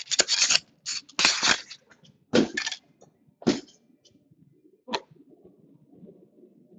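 Trading cards and their cardboard packaging being handled: a few short scraping, rustling strokes of card stock sliding against card stock, the last and sharpest about five seconds in.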